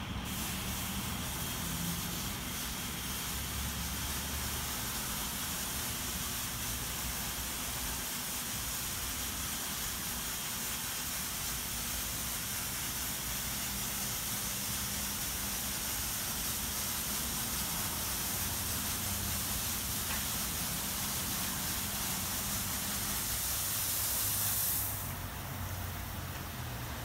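Ryko SoftGloss MAXX rollover car wash spraying water from its gantry nozzles over a car: a steady hiss over a low machine hum, the spray cutting off suddenly about 25 seconds in.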